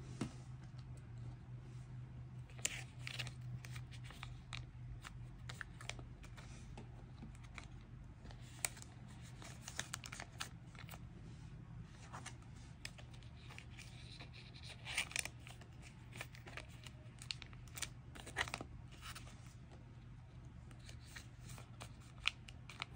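Clear plastic sleeves of a small photocard binder crinkling and rustling as photocards are slid into the pockets and pages are handled, in short scattered rustles and soft clicks.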